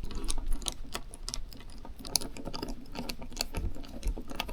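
Screw being turned in and tightened by hand: a run of small, irregular metallic clicks and scrapes.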